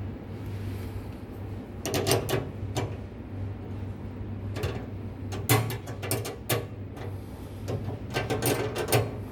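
Bursts of quick metallic clicking from a 10 mm socket wrench ratcheting as nuts are tightened on a dishwasher tank element, in four short spells.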